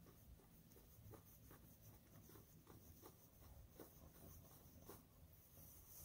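Near silence: faint scratching and rustling with scattered light clicks over a low hum.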